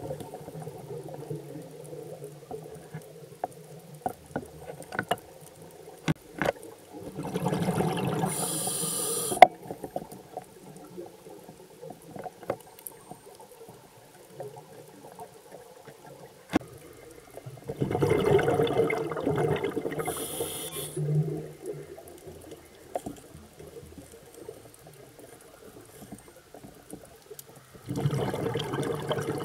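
A scuba diver's exhaled breath bubbling out of the regulator, heard underwater: three long bubbling bursts about ten seconds apart, with scattered sharp clicks in between.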